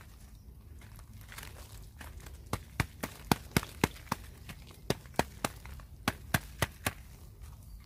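Hands working taro seedlings apart in a pot of wet soil: a run of sharp, irregular clicks and crackles, about three a second, starting a couple of seconds in and stopping shortly before the end.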